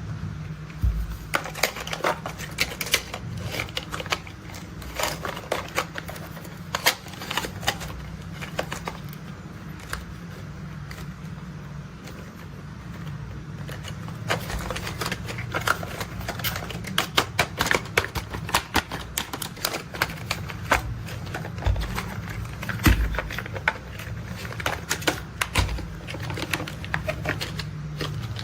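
Plastic toy construction vehicles being handled: rapid, irregular clicking and clattering of plastic parts, growing busier about halfway through, over a steady low hum.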